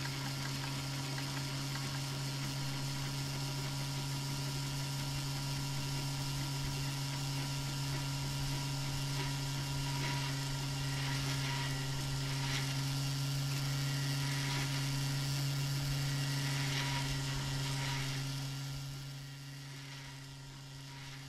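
Desktop 3D printer running: a steady low mechanical hum, with faint ticks and whirs through the middle as it prints, dropping quieter near the end.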